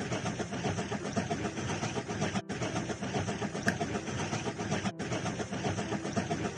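A train running with steady, dense mechanical noise. The sound cuts out briefly about every two and a half seconds, with a couple of short high chirps in between.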